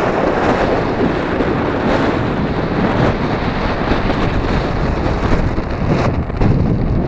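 Steady, loud rush of wind buffeting the microphone of a camera carried by a skier moving downhill.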